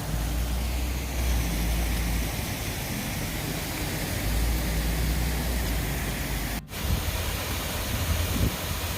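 Steady rush of water pouring over and around a grist mill's water wheel and its brook rapids, with a low rumble coming and going. The sound briefly cuts out a little before 7 s.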